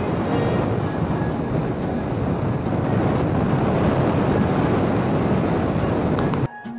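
Steady rush of wind and engine noise from a moving motorcycle, with heavy wind on the microphone, that cuts off abruptly near the end.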